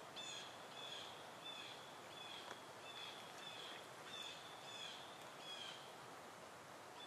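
A bird calling faintly: a run of short, slightly falling chirps, about two a second, stopping about a second before the end, over a faint outdoor hiss.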